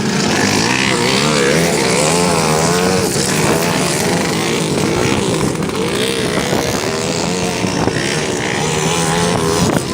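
Racing motorcycle engines revving, their pitch rising and falling over and over, as on a dirt speed track.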